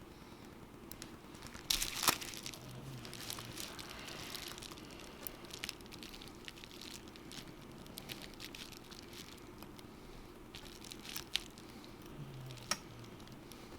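Small scattered clicks, scrapes and crinkling from hand tools and parts being worked on an iPhone 7 Plus during a screen repair, over a low room hum. The loudest scrape comes about two seconds in, with sharp clicks later at about eleven and near thirteen seconds.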